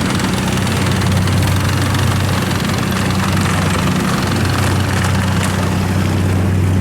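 Large river cargo boat's engine running loud and steady, a deep hum.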